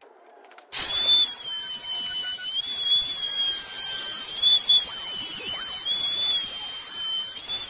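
Porter-Cable router running at high speed while cutting a profile into the edge of a hickory tabletop: a steady high-pitched whine whose pitch wavers slightly as the bit loads in the wood. It starts abruptly just under a second in.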